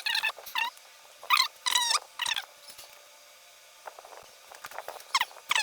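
A small animal's high-pitched squeaks: a quick run of short calls in the first two and a half seconds, then two more near the end.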